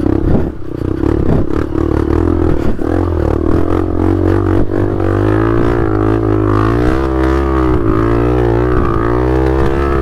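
Dirt bike engines running and revving up and down as the riders fight for grip on a slippery muddy climb. The steady low drone has a pitch that wavers with the throttle, most of all in the second half, and there are scattered knocks in the first few seconds.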